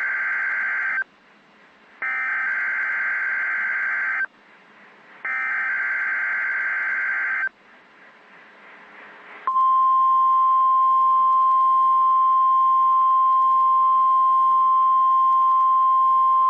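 NOAA Weather Radio Emergency Alert System (SAME) header: three bursts of digital data tones, each about two seconds long and ending abruptly, about a second apart. After a short pause, about halfway through, the steady 1050 Hz warning alarm tone comes on loud and holds. This is the alert sequence of the required weekly test.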